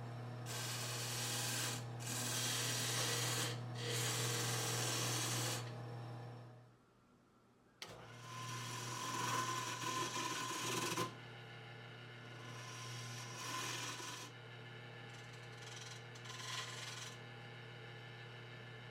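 Wood lathe running with a steady motor hum while something rubs against the spinning wooden workpiece in several passes, with scraping and rubbing noise. The sound drops away briefly about seven seconds in, then starts again.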